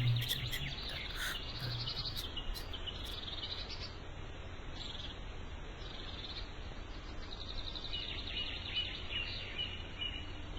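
Small birds chirping and trilling in high, quick phrases over a steady background hiss, busiest in the first few seconds and again near the end.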